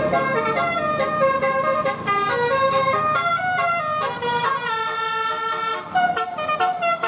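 A bus's telolet horn, a multi-tone musical air horn, playing a tune of held notes that step up and down in pitch, breaking into short quick toots near the end.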